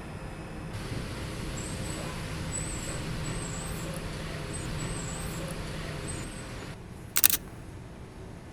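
Steady city street traffic noise, with faint high squeaks in it. A short, sharp hiss comes near the end.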